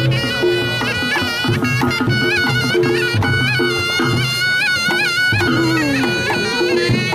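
Reog Ponorogo music: a slompret, the nasal double-reed shawm of reog, plays an ornamented, wavering melody over a steady beat of kendang drum strokes and a low gong drone.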